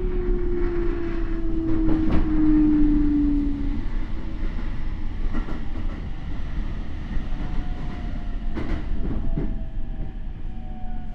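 Toei 10-300 series first-batch train running, its Mitsubishi IGBT inverter and traction motors giving a strong whine that falls in pitch over the first few seconds, over a steady rumble. Wheels knock over rail joints a few times.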